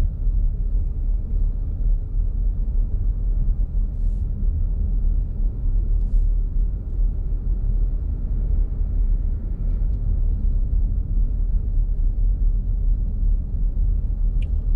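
Steady low rumble of a car driving on a paved road, heard from inside the cabin: tyre and engine noise, with a few faint clicks.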